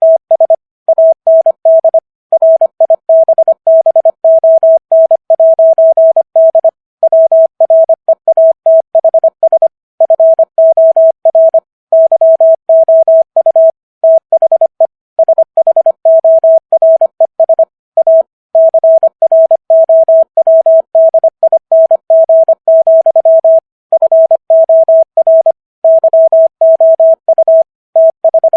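Morse code sent at 25 words per minute as one steady mid-pitched tone, keyed on and off in rapid dots and dashes with short gaps between letters and words. It is a rendering of a poem's text for code-copy practice.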